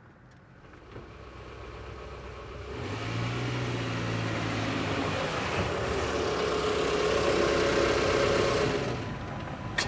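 Car engine running, growing louder over the first several seconds and easing off near the end, with a single sharp click just before the end.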